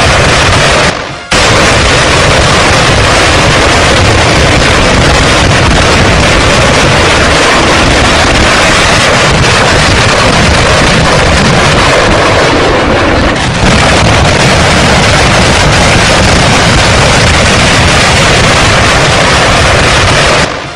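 Artillery fire and shell explosions, recorded so loud and distorted that the blasts merge into one continuous noise. It cuts out briefly about a second in and dips again around 13 seconds.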